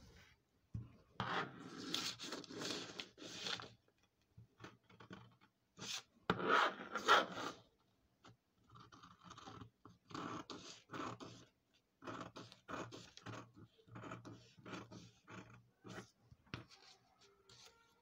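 Scissors cutting through paper pattern: an irregular run of snips and paper rustling, loudest about six to seven seconds in.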